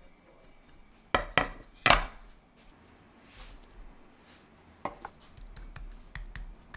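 Kitchen utensils knocking and clicking against metal and wood: three sharp knocks between one and two seconds in, then a pair of lighter clicks near five seconds and a few soft taps.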